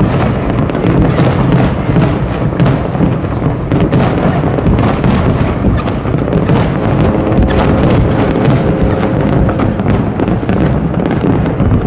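Fireworks display going off in a dense, continuous barrage of many overlapping bangs.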